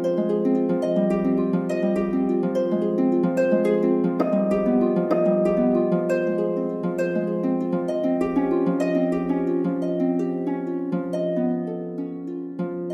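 Gentle, relaxing instrumental background music of many quick plucked notes over held tones, growing softer near the end.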